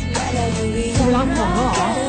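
A Spanish-language pop ballad playing, with a voice singing a gliding melody over steady backing in the second second.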